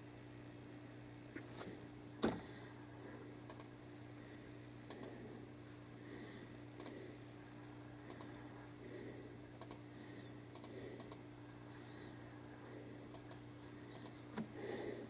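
Faint, scattered light clicks of a fingertip tapping an iPod Touch's glass touchscreen, about a dozen spread unevenly, with one louder thump about two seconds in. A steady low hum runs underneath.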